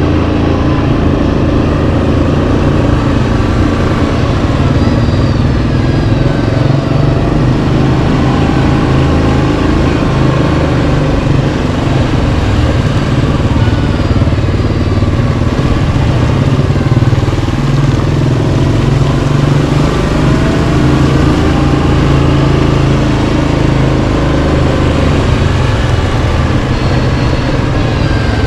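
Yamaha Kodiak 700 ATV's single-cylinder engine running under way on a trail, its pitch gently rising and falling as the throttle changes.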